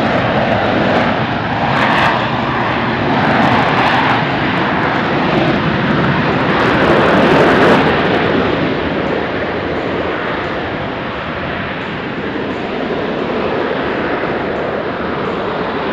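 McDonnell Douglas AV-8B Harrier II's Rolls-Royce Pegasus turbofan running at high thrust as the jet hovers on its downward-vectored nozzles: loud, continuous jet noise that swells to its loudest about seven seconds in, then eases a little.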